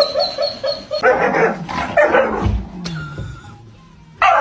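A dog yipping in a quick run of short, high yelps, then barking a few louder barks.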